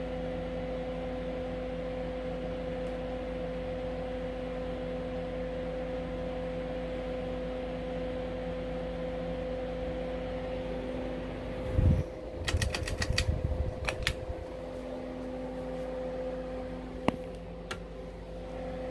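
Steady hum of a Harbor Breeze Builders Best ceiling fan running, mixed with a space heater's hum and a constant droning tone. About twelve seconds in come a couple of seconds of loud thumps and quick clicks, then a single sharp click a few seconds later.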